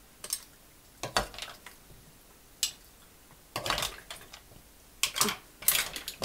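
Metal ladle and wooden spatula clinking and scraping against a stone-coated frying pan and the mussel shells in it, as mussels are ladled out. The clatters come in short separate spells about once a second.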